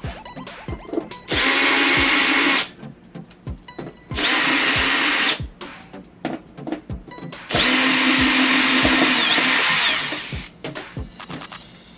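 Cordless power screwdriver running in three bursts, the last the longest, with small clicks of handling between them. The screwdriver is taking out screws to remove a Samsung LCD TV's main board. Its pitch dips briefly near the end of the last burst.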